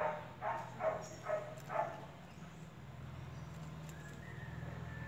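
A cat meowing five times in quick succession, about two meows a second, over a steady low hum.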